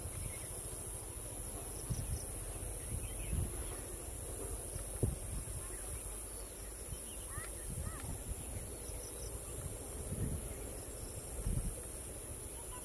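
Outdoor wildlife ambience: a steady high insect drone, a few short bird chirps about halfway through, and occasional low thumps.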